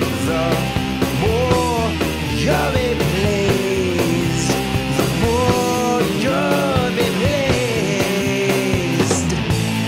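Rock music soundtrack with a steady beat and a lead melody that slides between notes.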